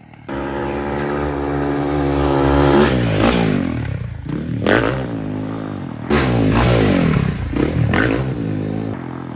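Dirt bike engine revving hard, its pitch climbing steadily, then swooping up and down with quick throttle blips as the bike jumps. The engine sound breaks off abruptly about six seconds in and picks up again at once at high revs.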